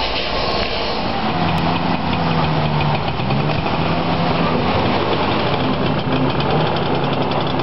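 Vintage saloon car's engine running as the car drives slowly past, its pitch shifting slightly, with an even rhythmic pulsing that grows clearer near the end.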